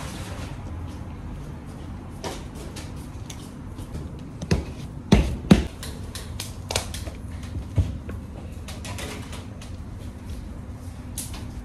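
Scattered knocks and clicks of a steel roasting spit being pushed through a whole lamb carcass and bumping against the table, loudest twice in quick succession a little past the middle, over a steady low background noise.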